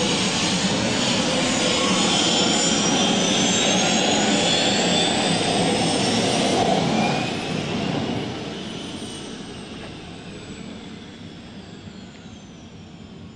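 Gas turbine engine of an MTT Y2K Superbike, a Rolls-Royce Allison 250 turboshaft, running with a jet-like rush and a high whine that shifts in pitch as the bike rides off. From about seven seconds in it fades steadily as the bike draws away.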